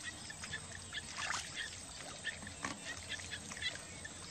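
Hands groping in shallow mud and water, making faint scattered squelches and small splashes.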